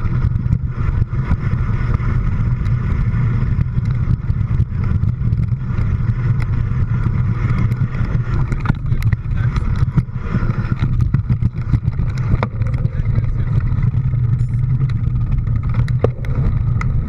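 Steady low rumble of a vehicle in motion, with scattered clicks and rattles throughout.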